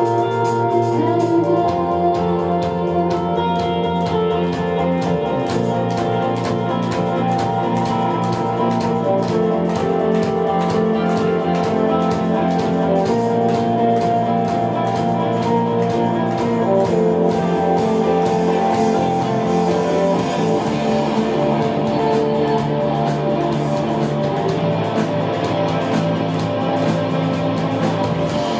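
Live rock band playing: distorted electric guitars ringing over a bass line that shifts note every few seconds, with drums and cymbals keeping a steady beat.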